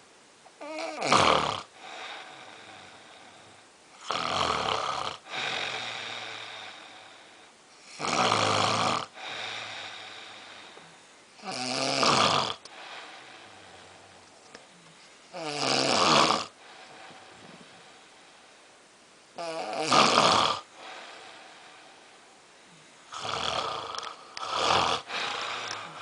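A person snoring loudly in a steady rhythm, one heavy snore about every four seconds with a quieter breath trailing after each, the last snore coming as two close together.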